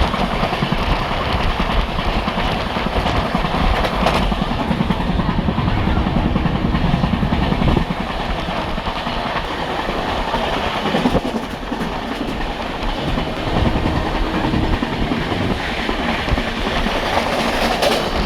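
Express passenger train running at speed, a steady heavy rumble with the wheels clattering over the rails.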